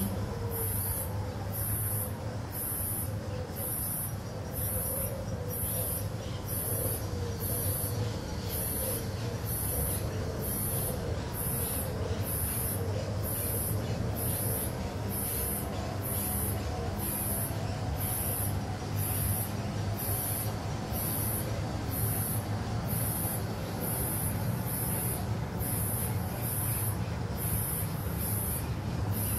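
Steady low rumble of distant street traffic, with a high-pitched pulse repeating evenly about once a second over it.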